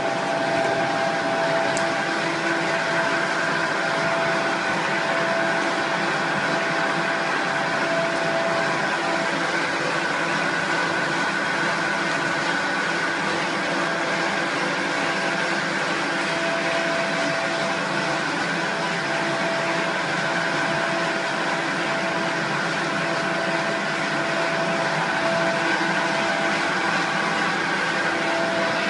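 Plastic recycling extruder line running steadily: a continuous machine drone with several steady whining tones held over it.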